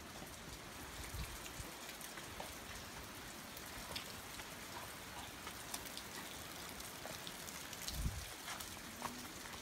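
Steady rain falling on a canvas safari tent, with many scattered drop ticks. A dull low thump comes about eight seconds in.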